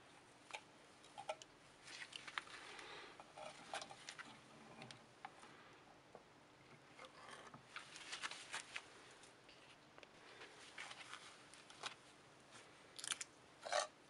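Scattered faint clicks, scrapes and wet knocks of a metal gripping tool on a rusty iron cowbell as it is turned over in a tray of vinegar, with a louder clatter near the end as the bell is lifted out of the liquid.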